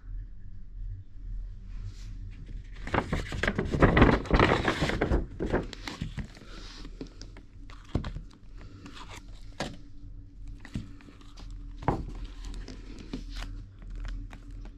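Paper shopping bag rustling and crinkling loudly for a couple of seconds as the iPhone box is pulled out of it, followed by quieter handling with a few light knocks and scrapes of the box.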